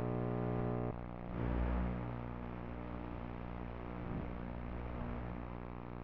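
Steady electrical buzz and static on the audio of an analog FPV video recording. The buzz is made of many even tones. It thins about a second in, and a brief swell of hiss comes around a second and a half.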